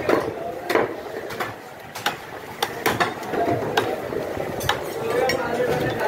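A butcher's cleaver chopping through a goat carcass onto a wooden log chopping block: a series of sharp, irregular strikes, some with a metallic clink.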